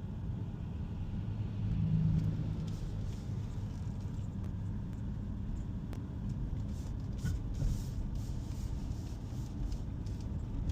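Car driving slowly, heard from inside the cabin: a steady low rumble of engine and tyres on the road, swelling briefly about two seconds in.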